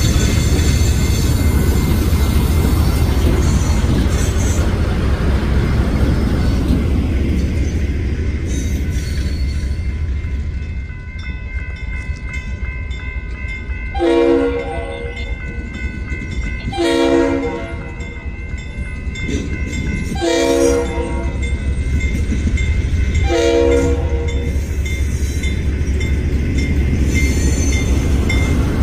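Freight cars rolling past over the rails, fading out after about seven seconds. Then the air horn of GE B23-7 diesel locomotive #4211 sounds four blasts about three seconds apart as it nears the grade crossing, over the low rumble of its idling engine.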